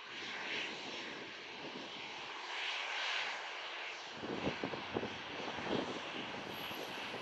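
Twin Rolls-Royce Trent 7000 turbofans of an Airbus A330neo running at takeoff thrust, a steady jet noise that swells at the start. Some uneven low crackle comes in about four to six seconds in.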